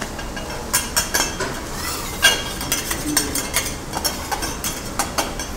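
Irregular sharp metal clinks and taps of utensils at a teppanyaki griddle, the loudest about two seconds in, over a steady background hiss.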